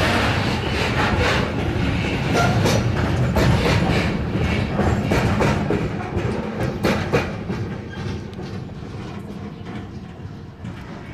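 Container flat wagons of a freight train rolling past, wheels clicking over the rail joints. The sound fades away after the last wagon passes, about six or seven seconds in.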